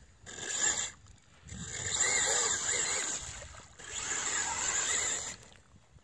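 Axial Deadbolt RC truck's electric motor whining and its tyres churning through mud, in three bursts of throttle: a short one, then two longer ones of about a second and a half each.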